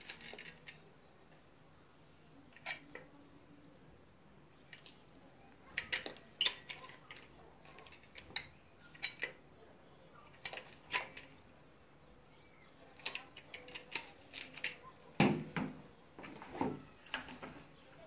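Scattered light clicks and taps from a caulking gun and plastic PVC cable-trunking channels being handled while silicone sealant is applied over screw holes, with a few louder plastic knocks near the end.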